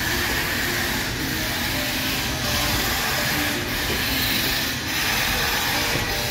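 Steam locomotive No. 1309, a Baldwin 2-6-6-2 articulated engine, pulling away under load, heard close from the car right behind it. A loud steady rush of exhaust and hiss with a regular beat a little more than once a second.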